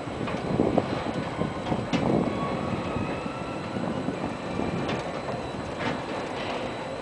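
Rattling and clacking of the open seat cars of an inclined-track ride running up their rails, with a few sharper clicks at uneven intervals.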